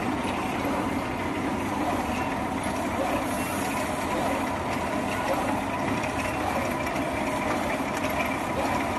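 HQJ-1400B paper roll-to-sheet cutting machine running, a steady, fast mechanical clatter, while it is being brought up to speed.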